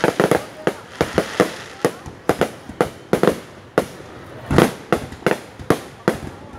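Aerial firework shells bursting overhead in a dense, irregular series of sharp bangs, a few each second. The loudest bang comes about two-thirds of the way through.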